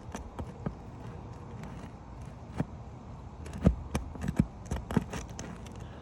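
A shingle being lifted and worked with a roofer's snake tool: irregular sharp clicks and knocks of the tool and shingle, a few at first and several close together in the second half.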